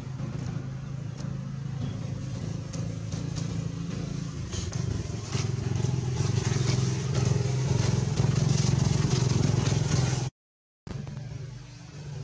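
A motor engine running steadily with a low hum, over scattered faint clicks. The sound cuts out completely for about half a second near the end.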